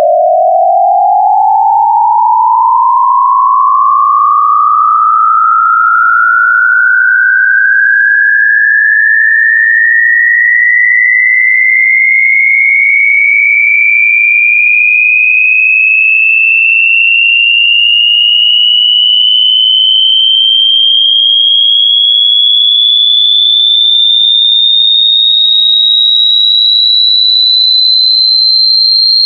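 A loud, single pure electronic tone sliding slowly and continuously upward in pitch, from a mid-range tone to a high whine, the rise slowing as it climbs.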